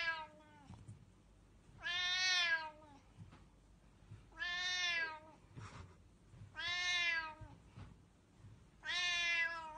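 Siamese-type cat meowing repeatedly: one call ends just after the start, then four more follow, one every two and a half seconds or so. Each is drawn out for about a second and drops in pitch at the end.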